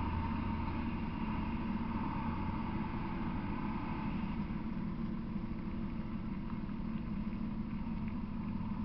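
Engine of a crane-equipped work truck running steadily at low speed as the truck rolls slowly past.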